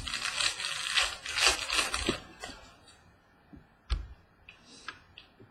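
Crinkling and rustling of trading-card packaging for about two seconds, then a few light clicks and a single sharp knock near the four-second mark.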